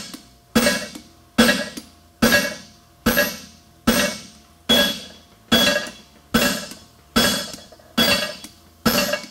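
Hand hammer striking a red-hot 5/8-inch square steel bar on a steel forging block on an anvil, eleven evenly spaced blows a little under one a second, each ringing and fading before the next: forging a horseshoe and cleaning up the flashing squeezed out over the block.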